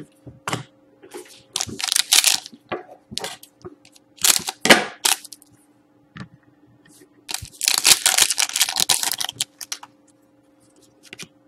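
A foil trading-card pack being handled, torn open and crinkled, with cards slid and shuffled between the fingers: a run of rustles, the longest lasting about two seconds near the end.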